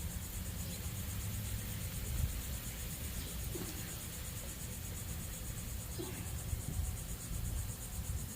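Insects chirping in a steady, high, evenly pulsing trill over a low rumble.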